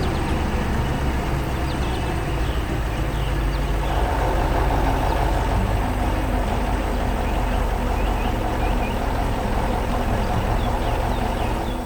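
Heavy diesel engine of logging machinery running steadily, with a stronger mid-range hum from about four seconds in.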